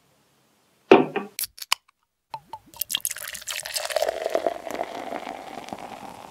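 A glass knocking down onto a table about a second in, with a few light clinks. After a short break, liquid pouring and fizzing steadily with scattered drips to the end.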